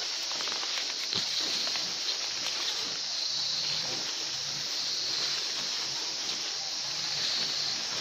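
Outdoor ambience among tall crop plants: a steady high hiss with a brighter high band that swells and fades several times, and a few rustles and ticks in the first two seconds.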